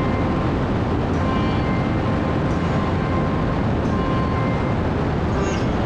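Harley-Davidson motorcycle cruising at a steady road speed: an unbroken rumble of engine and wind.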